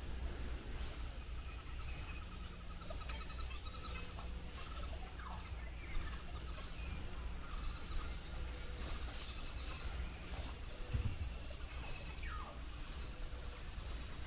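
Insects singing in one steady, high-pitched continuous tone, with a low rumble underneath and a few faint short calls.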